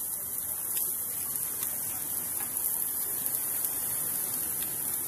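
Ono fillets sizzling on a hot grill: a steady high hiss with faint scattered crackles.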